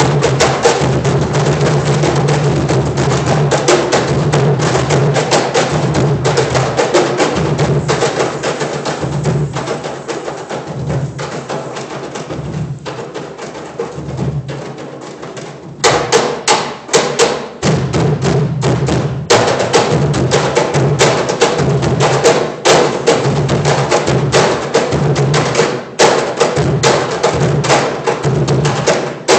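Five Peruvian cajones played together in a fast, dense rhythm: deep bass strokes mixed with sharp slaps on the wooden box fronts. The playing drops to a softer passage about ten seconds in and comes back loud suddenly about sixteen seconds in.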